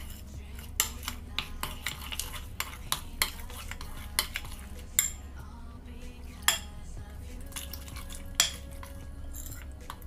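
Metal spoon stirring thick flour-and-water batter in a ceramic bowl, clinking and scraping against the bowl in an irregular run of sharp clicks, a few of them louder.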